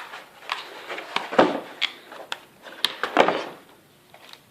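Headset packaging being handled and opened: a run of small plastic and cardboard clicks and knocks with a couple of louder rustles, easing off near the end.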